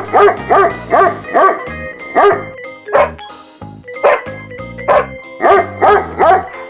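Dog barking repeatedly, short sharp barks in two quick runs with a pause of a second or two in the middle, over light background music.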